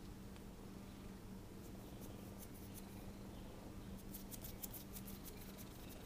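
Cat making rapid, faint high-pitched clicking sounds in two spells, the second denser, near the end, over a steady low hum.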